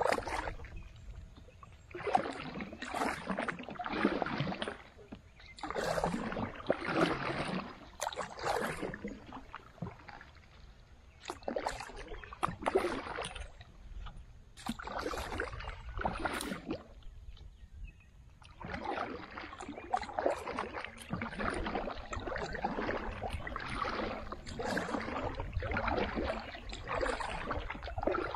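Kayak paddle strokes through calm pond water: a swish and splash with each stroke, coming in bursts about a second long with short pauses between.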